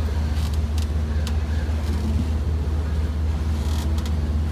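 Sailboat's auxiliary engine running steadily under way, a constant low drone while motor-sailing into a choppy headwind.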